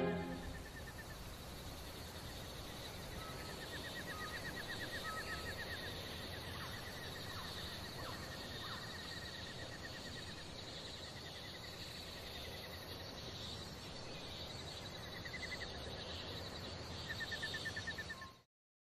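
Rainforest ambience: a steady high insect hiss with repeated fast trilling calls and a few short whistled notes, cutting off abruptly near the end.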